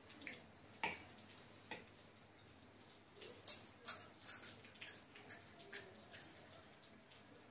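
A person eating close to the microphone: a few faint wet mouth clicks, then a quick run of wet chewing and smacking sounds from about three seconds in.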